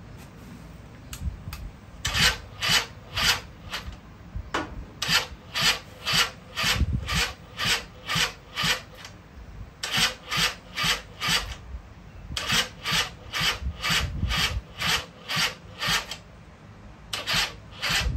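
Rhythmic rasping, scraping strokes, about two or three a second, in runs of several strokes broken by short pauses.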